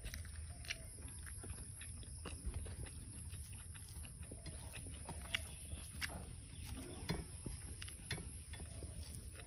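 Faint close-up eating sounds: chewing and lip smacks, and fingers mixing rice and pork curry on a metal plate, as many small scattered clicks and smacks.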